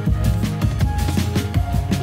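Background music with a steady drum beat over a sustained bass line.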